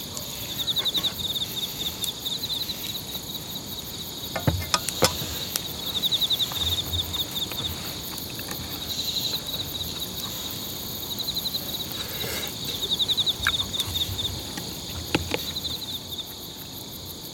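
Insects chirping in repeated bouts of rapid, high-pitched pulses, each a second or two long. A few clicks of utensils against the dishes come about four to five seconds in and again near the end.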